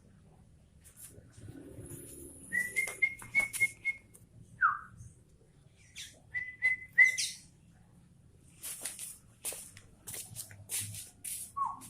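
A caged bulbul calling: a quick run of short, even whistled notes, a single falling note, then a burst of sharp high chirps and clicks near the end.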